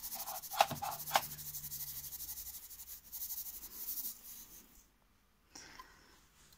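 Brown sugar poured from a bowl into a stainless steel mixing bowl of flour: a soft, gritty hiss of grains sliding out, with a couple of light taps in the first second or so, tailing off after about four seconds.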